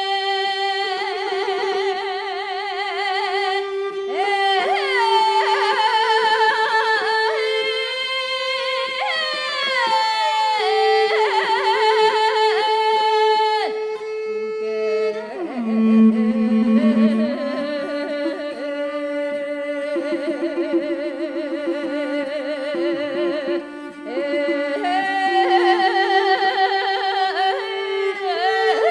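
A woman singing a Mongolian long song (urtiin duu): long held notes thick with vibrato, joined by wide melismatic slides up and down, over a lower accompanying line of sustained notes.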